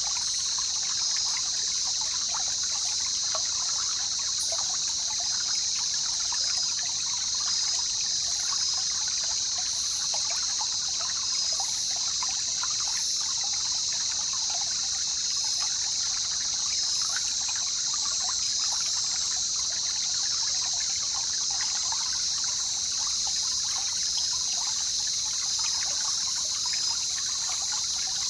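River water running and trickling steadily, with many small splashes, under a steady high-pitched drone.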